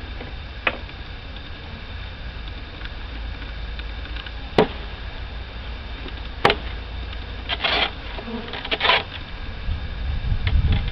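Honeybees from a package buzzing around an open hive, with a few sharp knocks and clicks and two short scrapes of wooden hive parts being handled.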